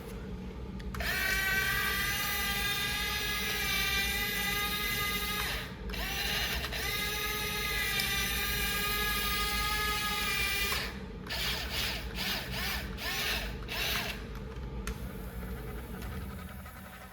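Small electric gear motors of a toy RC excavator whining through a long run of about four and a half seconds. After a brief stop there is a second equally long run, then a string of short stop-start bursts, and near the end only a fainter low hum.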